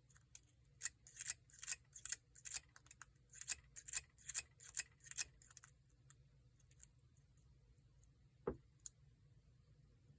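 Steel lock pick clicking and scraping against the security pins inside a Paclock 90A-PRO padlock's keyway, a quick run of sharp metallic clicks through the first half. Later comes a single duller knock.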